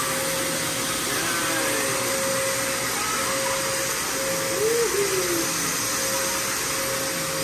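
Upright bagless vacuum cleaner running steadily on carpet, an even rushing noise with a steady motor whine.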